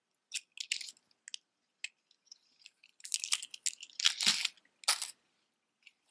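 Costume jewelry being handled: metal chains and pendants clicking and rustling, with a cardboard display card rustling. The sounds come as scattered short clicks and crinkles, busiest and loudest about three to five seconds in.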